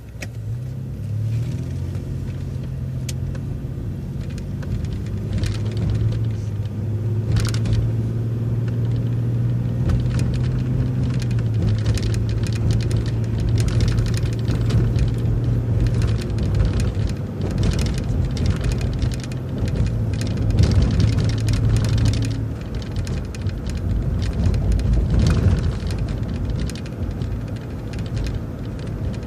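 City transit bus engine pulling away and running under way, a steady low drone that picks up about a second in and eases off near the end, with occasional short clicks and rattles.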